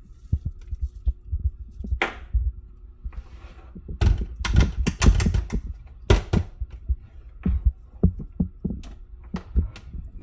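Coffee being loaded into a drip coffee maker: a rustle about two seconds in, then a run of thunks, taps and clicks from the machine's lid and parts, thickest between four and six seconds in. A faint steady hum runs underneath.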